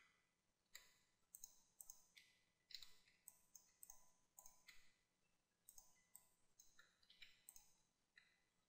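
Faint, irregular clicking of a computer mouse and keyboard, some clicks coming in quick pairs.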